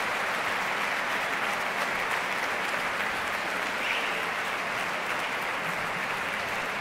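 A large concert audience applauding steadily for an orchestra.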